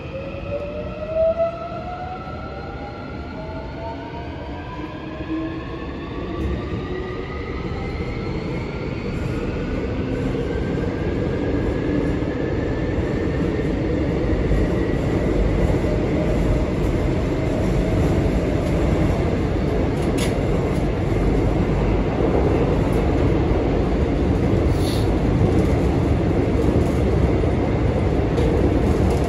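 Incheon Subway Line 1 electric train heard from inside the car as it accelerates: the traction motors' whine climbs in pitch over the first dozen seconds while the rumble of the wheels on the rails grows steadily louder. A couple of brief clicks come later.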